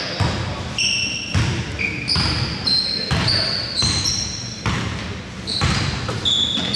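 A basketball being dribbled on a gym court, a bounce about every second, with short high-pitched squeaks of sneakers on the floor.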